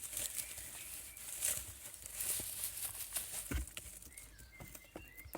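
Animals moving about: rustling with scattered light footfalls and taps, and short bird chirps in the second half.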